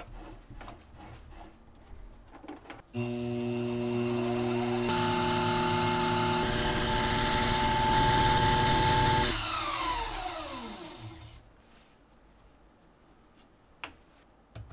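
Small CNC mill cutting brass. A few light handling clicks come first as the brass tube goes into the rotary chuck. About three seconds in, the spindle motor starts with a steady whine. A higher tone and a hiss join it as the end mill cuts into the turning brass tube. Near ten seconds the whine falls away as the spindle spins down.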